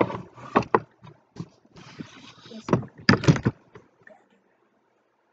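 Rustling of clothing and a run of knocks and thuds close to the microphone, stopping about four seconds in.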